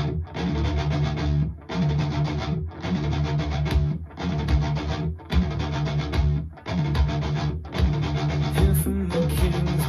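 Heavy rock music played through Klipsch R-40PM powered bookshelf speakers: a distorted electric guitar and bass riff in phrases of about a second each, broken by short gaps.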